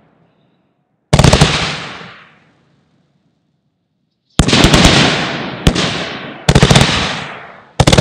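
Ground fireworks going off: a burst of sharp bangs about a second in, then after a quiet gap of about three seconds four more bursts in quick succession. Each burst is a tight cluster of cracks that dies away over about a second.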